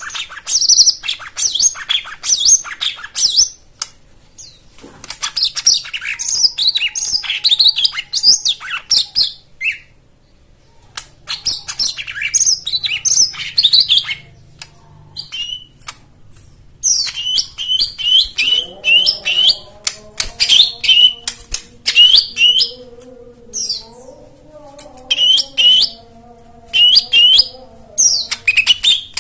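Songbird singing rapid, high chirping and twittering phrases in bursts, with short pauses between them. From about two-thirds of the way through, a lower wavering tone runs underneath the song.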